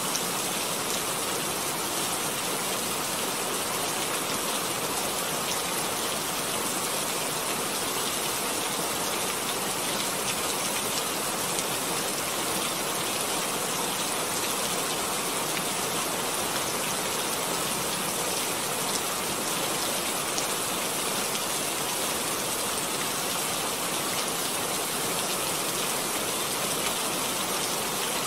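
Steady rain-like hiss with a fine, dense patter, spread evenly from low to very high pitch.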